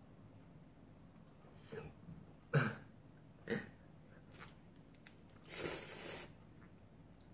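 A few short coughing sounds, the sharpest about two and a half seconds in, then a man slurping a mouthful of instant ramen noodles in one long slurp near the end.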